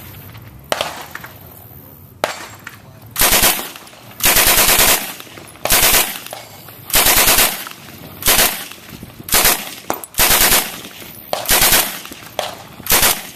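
Sterling 9mm submachine gun firing on full auto in a series of short bursts, about ten of them, each half a second to a second long, starting about three seconds in.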